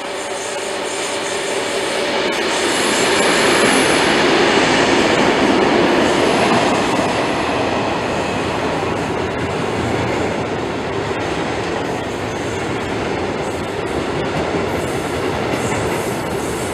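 Two DSB MZ-class diesel-electric locomotives with EMD two-stroke engines pass close by, hauling a freight train. The sound swells to its loudest about five seconds in, then settles into a steady rumble and clatter of loaded hopper wagons rolling over the rails. A brief high squeal comes about three seconds in.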